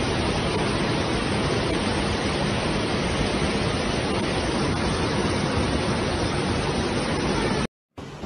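Floodwater rushing in a muddy torrent: a steady, noisy rush with no pauses. It cuts off abruptly near the end, and after a brief silence a quieter hiss follows.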